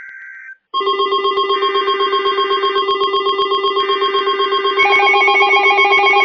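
Weather alert radio receivers sounding their electronic alert alarm: a loud, rapidly pulsing beeping over several steady tones, stepping up in loudness about five seconds in. It is set off by an incoming National Weather Service alert, whose buzzy SAME data burst ends about half a second in.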